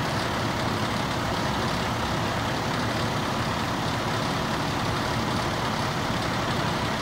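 Fire engine's diesel engine running steadily at the scene.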